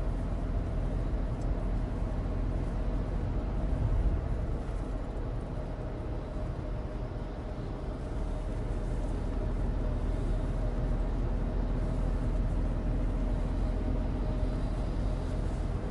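Cabin noise of a 2016 Suzuki Alto Turbo RS under way: its small turbocharged three-cylinder engine running steadily under a low rumble of road and winter-tyre noise, easing slightly about halfway through.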